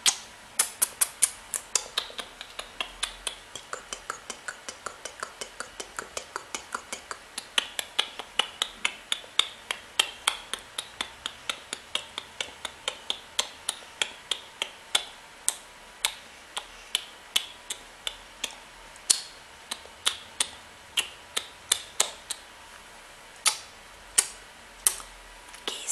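ASMR mouth sounds close to the microphone: a long run of quick kiss and lip-smack clicks, several a second for the first half, then more spaced out.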